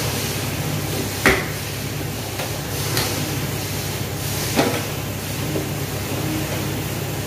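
Steady kitchen background noise with three short knocks off-camera, the loudest about a second in and two softer ones around three and four and a half seconds in, like a door or cupboard being opened and shut.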